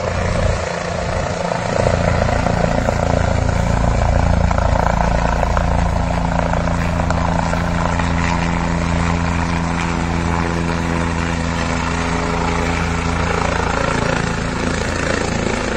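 Helicopter rotor and engine running steadily overhead as it comes in to land, with a continuous low drone that is clearest in the middle.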